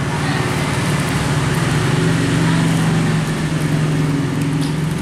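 Epson L120 inkjet printer mechanism running as it takes in a sheet of PET film and prints: a steady motor hum whose tones shift from stretch to stretch.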